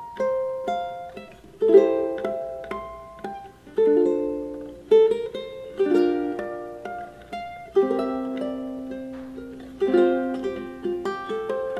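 Locomango TU-300s solid-top ukulele played solo, mixing a plucked single-note melody with chords. Each chord is struck sharply and rings down between strikes.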